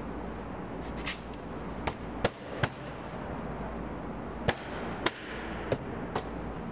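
Plastic retaining clips of a BMW E38 rear door trim panel snapping into the door as the panel is pressed home along its bottom edge: about eight sharp snaps, irregularly spaced, the loudest in the middle.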